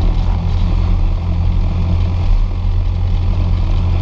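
Cessna 172's piston engine and propeller running at low power, a steady low drone heard inside the cabin.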